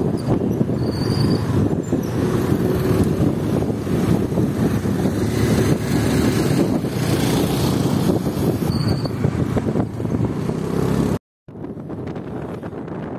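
Vehicle on the move with steady road and wind noise, heard while riding. About eleven seconds in it cuts out for a moment and comes back quieter.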